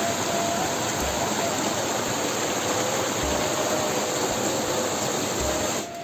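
Waterfall, a steady rush of falling water, cutting off abruptly near the end, with faint background music underneath.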